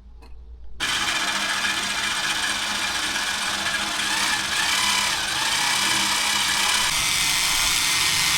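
Electric drill starting up about a second in and running steadily under load, drilling new holes for fitting anodes.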